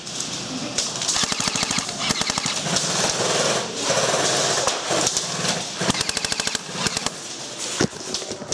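Airsoft guns firing on full auto in repeated rapid bursts of clicking shots.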